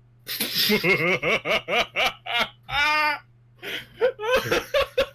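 Group laughter: bursts of laughing in short rhythmic pulses with a brief pause partway through, over a faint steady low hum.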